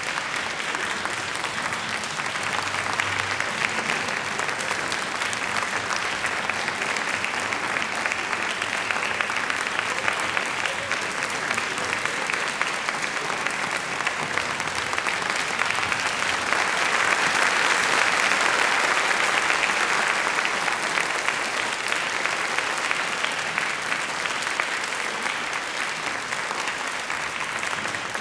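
Audience applauding steadily, growing a little louder about two-thirds of the way through.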